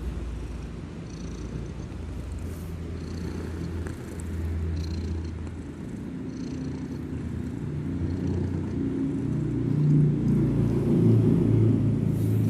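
Sleeping kitten snoring loudly, a steady low rumble that swells with each breath and grows louder over the last few seconds.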